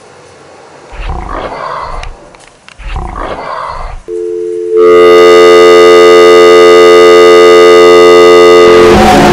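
Two tiger roars, one about a second in and another about three seconds in. Then a loud, steady buzzing tone starts about four seconds in and stops shortly before the end.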